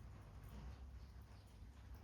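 Near silence: a faint steady rumble of rain with scattered soft ticks from quiet papercraft work.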